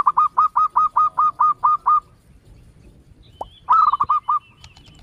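A bird calling in a rapid series of repeated honking notes, about five a second, for about two seconds, then a shorter, faster burst of the same calls a little before four seconds in; faint higher chirps follow near the end.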